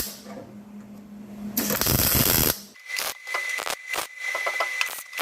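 MIG welder laying tack welds on sheet steel: a burst of arc crackle about a second long, starting about one and a half seconds in, then a run of irregular sharp pops.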